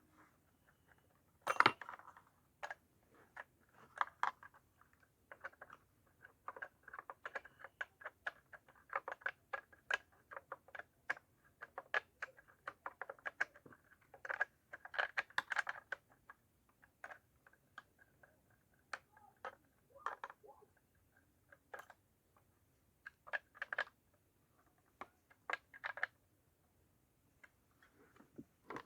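Irregular light metallic clicks and clinks of small parts and hand tools being handled on a chainsaw, with a louder knock about a second and a half in.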